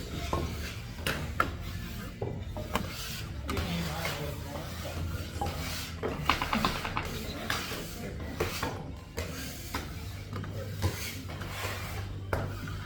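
Scraping and rubbing on wooden pastry boards as leftover pasta dough and flour are scrubbed off, with scattered clicks and knocks.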